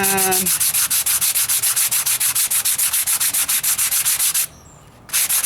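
Sandpaper rubbed by hand over body filler on a truck's wheel arch patch, in quick even back-and-forth strokes of about five or six a second, stopping briefly near the end before starting again.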